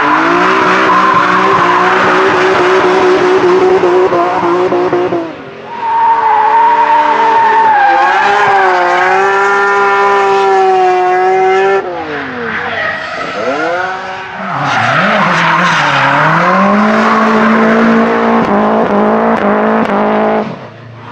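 Drift cars sliding sideways with engines held at high revs and tyres squealing, in a string of short clips. The engine note sags and recovers in the middle, and about two thirds of the way through an engine drops and then revs back up.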